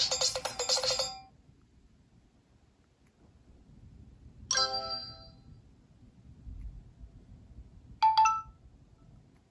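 Nokia 808 PureView ringtones: a fast run of notes ends about a second in. Then come two short alert tones: a single chime about four and a half seconds in that rings out briefly, and a sharper double tone about eight seconds in.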